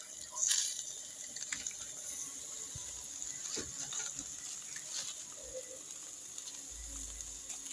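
Jerk chicken sizzling on a grill over a pimento-wood fire: a steady hiss with scattered crackles and pops.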